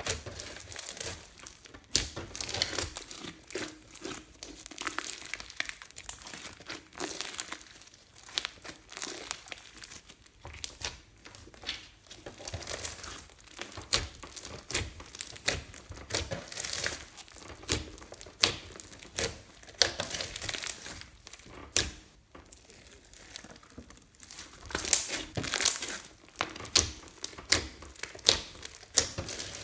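Hands kneading and squeezing a large lump of glossy slime mixed with small beads: dense, irregular crackling and popping, with a tearing sound as the slime is pulled apart.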